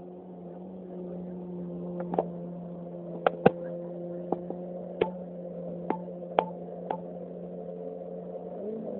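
Jet ski engine out on the water held at steady revs, a constant drone. From about two seconds in there are about eight sharp clicks or knocks, the loudest around the middle.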